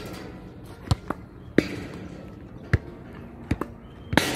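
Tennis ball being hit with a racket and bouncing on a hard court: a run of sharp pops at uneven intervals, some in quick pairs, the loudest about one and a half seconds in.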